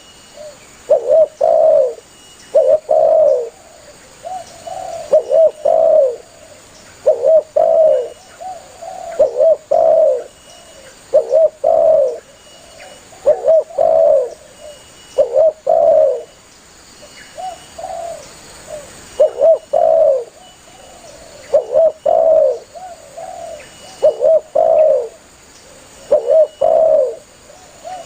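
Spotted dove (tekukur) cooing steadily, a low-pitched phrase of two or three notes about every two seconds.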